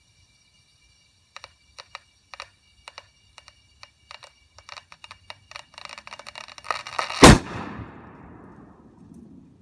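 Over-inflated soccer ball under compressed air from a hose: its casing gives sharp crackling clicks that come faster and faster, then the ball bursts with one loud bang about seven seconds in, followed by a rush of escaping air fading over a couple of seconds.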